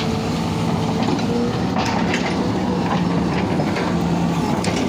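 Heavy construction machine's diesel engine running steadily, with a couple of sharp metallic clanks.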